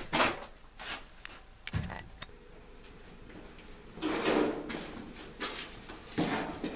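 Footsteps and sharp knocks in a small, echoing basement corridor, then two longer scraping sounds, one about four seconds in and one near the end, as a suitcase is reached for and handled.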